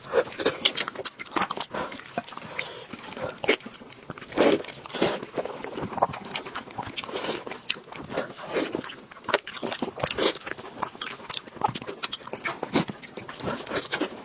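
Close-up eating: repeated bites, crunching and chewing of food, with wet clicks and smacks close to the microphone.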